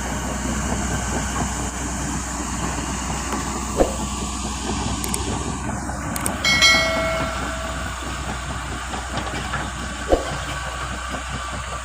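Komatsu D85PX crawler bulldozer working: the diesel engine runs steadily under the clanking and rattling of its steel tracks. Two sharp knocks stand out, about four and ten seconds in, and a brief high squeal comes about six and a half seconds in.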